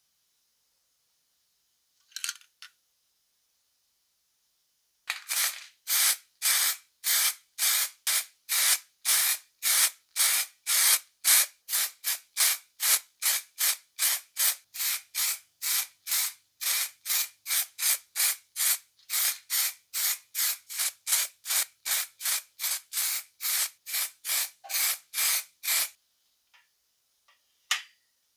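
Aerosol can of car spray paint spraying in short, quick bursts, about two a second, for some twenty seconds, starting about five seconds in. A couple of short clicks come near the end.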